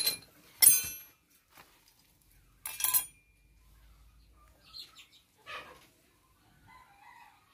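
Steel gears and parts of a tractor differential clinking against each other as they are handled. There are three sharp, ringing metallic clinks in the first three seconds, then softer knocks.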